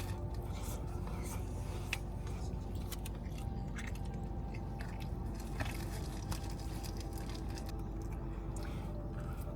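Close-up chewing of a large sauced boneless chicken wing: wet, squishy mouth sounds with small clicks, over a steady low background tone.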